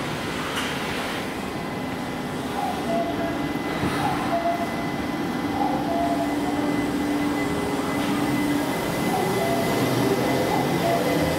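Tokyu Line electric commuter train moving through the station: a steady rumble with a faint motor hum, growing a little louder near the end.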